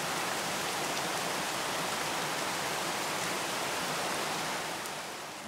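Steady rain falling outdoors, an even hiss that eases slightly near the end.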